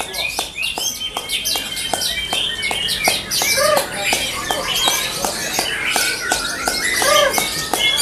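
White-rumped shamas (murai batu) in contest cages singing at once: loud overlapping whistled and chirping phrases, with a quick run of sharp ticks beneath.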